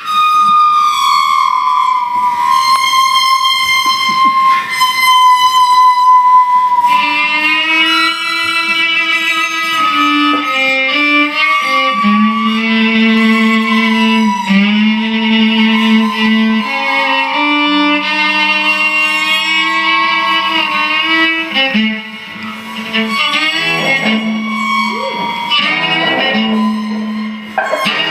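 Violin played live with a bow: a long high note that slides slightly downward, then a busier passage of shorter bowed notes from about seven seconds in. From around twelve seconds a low note sounds steadily underneath the melody.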